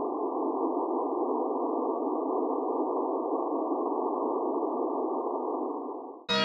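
A steady, muffled synthetic drone, a dense rushing band of sound with no tune or clear pitch, that dips in level and cuts off near the end.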